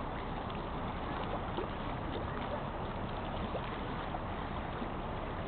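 Steady wash of choppy lake water and wind, an even noise with no distinct events.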